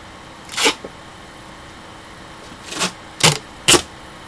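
Duct tape pulled off the roll in short rips: one near the start, then three close together near the end.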